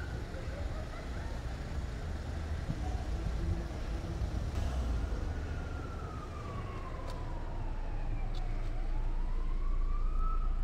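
A distant siren wailing, its pitch sliding slowly down and then back up near the end, over a low rumble of wind on the microphone. A few sharp clicks are heard in the middle.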